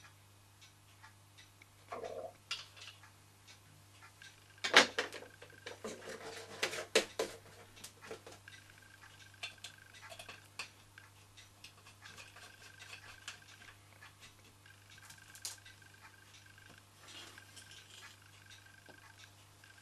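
Small metal parts of a toy steam engine being handled: clinks, taps and knocks as the boiler's top fitting is worked by hand and a burner is set beneath it. The busiest clatter comes about five to seven seconds in, with lighter taps afterwards.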